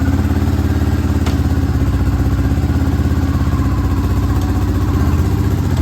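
Yamaha Raptor 660 ATV's single-cylinder four-stroke engine idling steadily, with a fast, even pulse and no revving.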